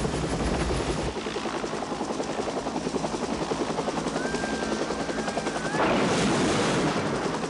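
Bell UH-1 Huey helicopter rotor blades beating steadily, deep and heavy for the first second, then a lighter chop. About six seconds in, a loud rushing splash of water as the slung patrol boat is dropped into the river.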